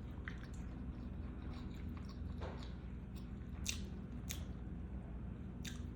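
Close-miked chewing of a mouthful of food, slow and wet, with a few sharp mouth smacks around the middle and near the end.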